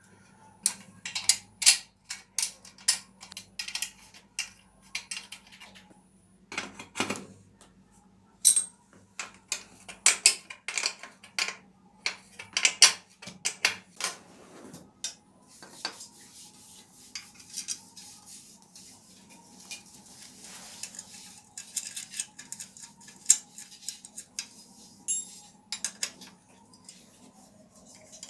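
Steel hand tools and bicycle parts clinking and clanking: a hex key and ring spanners knocked, set down and worked on the suspension fork and handlebar stem, in sharp irregular clinks. For several seconds past the middle the clinks run together into fast clicking and scraping, over a steady low hum.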